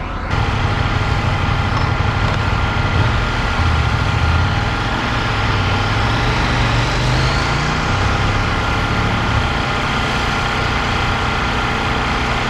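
An engine running steadily at low revs, its pitch rising a little about seven seconds in and dropping back about two seconds later.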